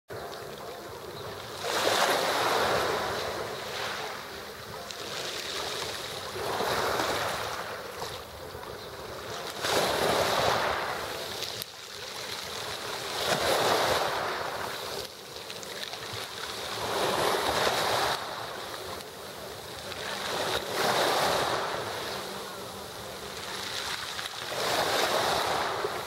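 Sea surf washing in, a wave swelling and breaking about every three and a half to four seconds, seven times.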